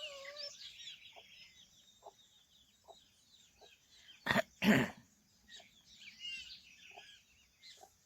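Farmyard chickens clucking softly, with high peeping chirps of chicks throughout. About four seconds in there are two loud, short coughs, a chicken clearing its throat.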